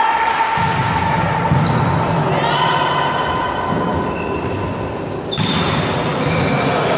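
Indoor volleyball rally in a large gym: the ball being served and struck, with smacks and thuds, while spectators chant and players call out. A loud smack comes about five and a half seconds in.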